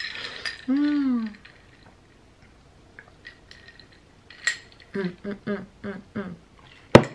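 Ice cubes clinking in a glass of iced water and sipping through a straw, with a short hummed "mm" about a second in. Some murmured voice follows later, and a single sharp click just before the end is the loudest sound.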